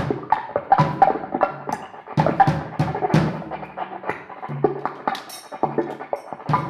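Music: busy, irregular percussive hits over short held bass notes and sustained pitched tones.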